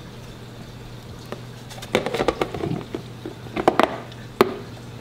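Clear plastic snake tub and its lid clattering and clicking on a glass table as a boa is set inside and the lid is put on: scattered knocks in the middle, then one sharp click near the end. A low steady hum runs underneath.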